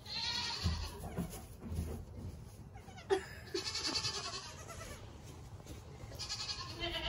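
Nigerian dwarf goat kids bleating: three high-pitched calls a few seconds apart, with a few soft low thumps in the first two seconds.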